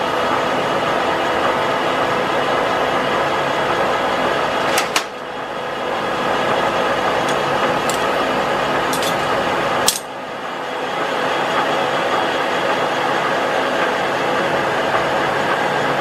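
Manual metal lathe running steadily with a gear whine during single-point thread cutting in steel. About five and ten seconds in there is a sharp clack, and the machine's sound drops and builds back up, as the spindle is braked and reversed between threading passes.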